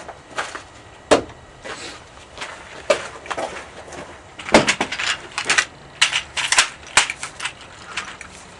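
Handling noise from an AR-15 rifle and its drum magazine: a string of sharp clicks and knocks. There is one strong knock about a second in, then a dense irregular run from about four and a half to seven and a half seconds in.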